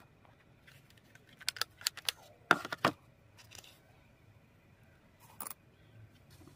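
Scattered sharp clicks and light clinks of small metal hardware being handled on a workbench, the loudest two close together about two and a half seconds in.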